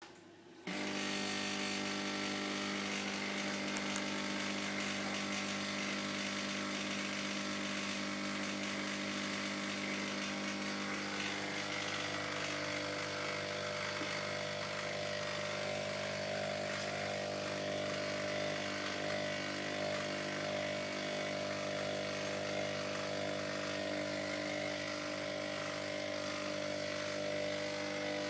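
Hotpoint Ultima WDD960 washing machine running with a steady, multi-toned drone and whine that starts abruptly under a second in and shifts in pitch about halfway through. These are the horrible noises the machine has started making; the owner does not know the cause.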